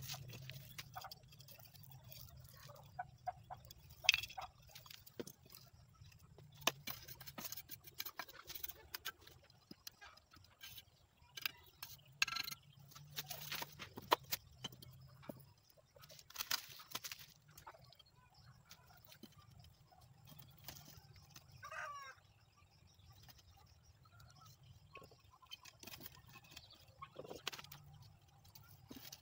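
Scattered scrapes and taps of a mason's trowel working cement mortar in a metal basin, with clicks of thin red clay bricks being stood against a mortar-coated mould.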